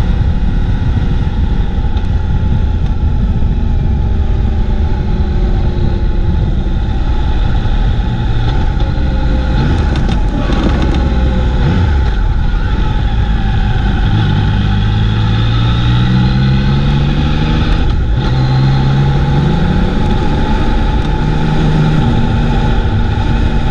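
Motorcycle engine running at riding speed, with strong wind rumble on the microphone. The engine note rises twice in the second half as the bike accelerates.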